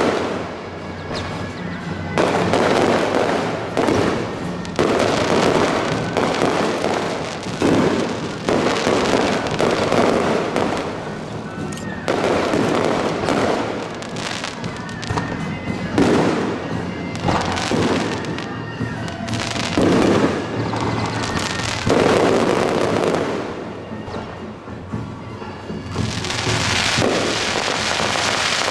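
Aerial fireworks bursting overhead, a loud boom every second or two, each trailing off into the crackle of the falling stars. Near the end a dense, unbroken crackling takes over.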